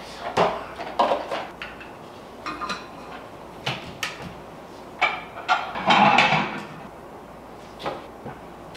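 Dishes being put away: knocks and clinks of bowls and cups set on a countertop and cabinet shelves, with a kitchen cabinet door opening and closing, and a longer clatter about six seconds in.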